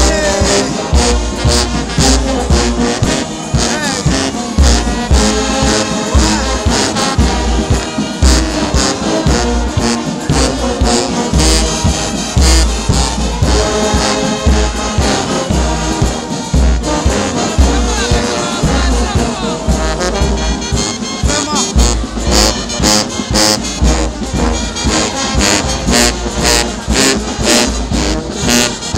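Brass band music, trombones and trumpets over a steady drum beat.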